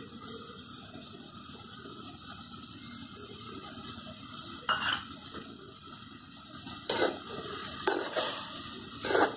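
A spoon stirring and scraping through cooking vegetables in a metal kadhai, over a steady low sizzle. From about halfway the spoon knocks sharply against the pan several times as grated coconut is mixed in.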